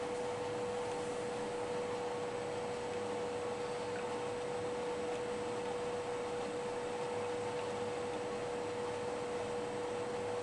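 Oxy-propane torch flame burning with a steady hiss, under a steady pure tone that does not change.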